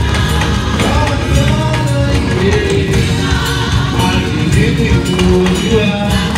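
Gospel choir singing with a live band, with strong bass and a steady beat of hand percussion such as shakers and tambourine.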